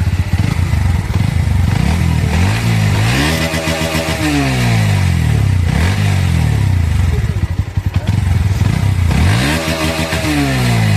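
Motorcycle engine idling and being revved twice through its exhaust, the pitch climbing and falling back to idle each time, the first rev a few seconds in and the second near the end.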